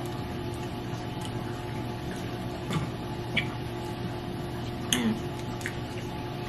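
Quiet room tone with a steady low hum, broken by a few soft clicks and mouth sounds from people eating ice cream off plastic spoons.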